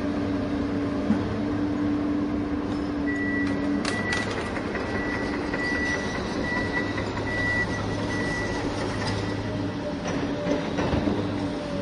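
Radio-controlled construction model running, a steady mechanical hum with a high whine that comes and goes in the middle.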